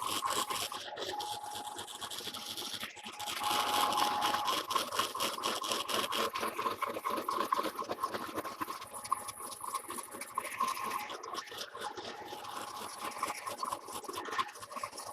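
Lathe carbide insert taking a roughing cut through the hard weld and rough surface of a steel trunnion wheel: a steady tone near 1 kHz under a rapid, continuous crackle of clicks from the interrupted cut.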